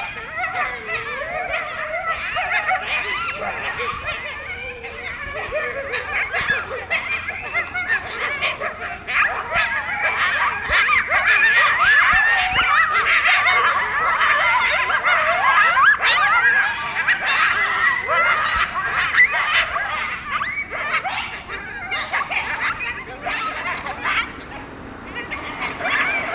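A pack of coyotes yipping and howling together, a chorus of many overlapping, wavering high calls. The chorus is busiest about halfway through and thins out near the end.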